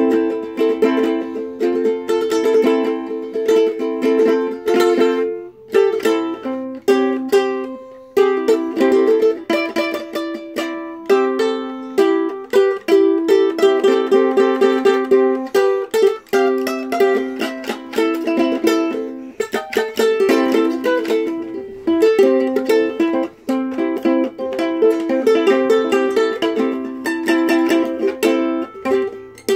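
Ukulele strummed in quick, repeated chords that change as it goes, with a short break about five and a half seconds in.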